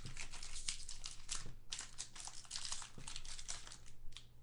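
Trading-card pack wrapper crinkling as it is torn open and the cards are pulled out, a run of quick crackles that dies away near the end.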